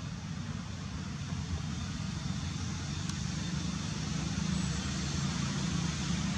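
Steady outdoor background rumble with a hiss over it, growing slightly louder toward the end, of the kind distant motor traffic makes.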